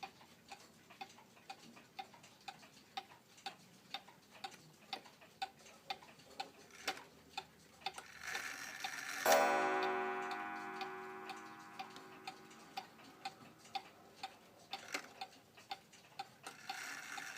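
Antique Ansonia gingerbread mantel clock ticking steadily, about two ticks a second. Near the middle a short whir is followed by one strike on its coil gong, which rings out and slowly dies away.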